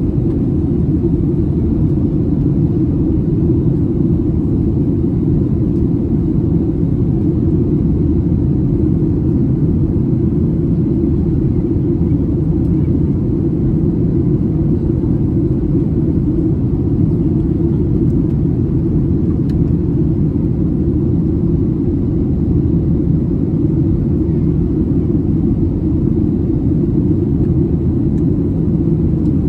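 Steady low rumble of a Boeing 737-800's twin CFM56-7B26 turbofans and the airflow around the fuselage, heard inside the cabin as the airliner climbs out after takeoff.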